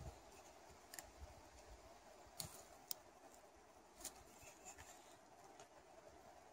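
Near silence, broken by a few faint, sharp clicks as a hand-turned spiral auger bit bores into a wooden batten.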